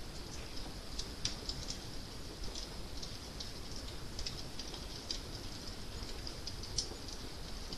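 Wood fire crackling: irregular small sharp pops and snaps over a steady low rumble.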